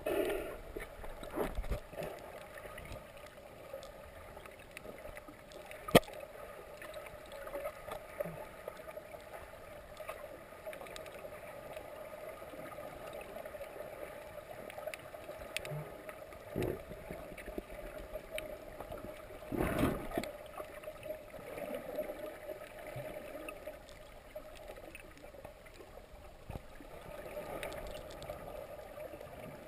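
Muffled underwater ambience heard through a camera's waterproof housing: a steady low wash of water with scattered clicks and knocks, one sharp click about six seconds in and a louder rush of water about twenty seconds in.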